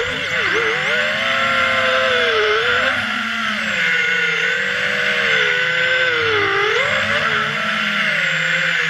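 FPV quadcopter's motors and propellers whining, the pitch dipping and climbing again and again, with the deepest dips about half a second in, around two and a half seconds in and around six and a half seconds in.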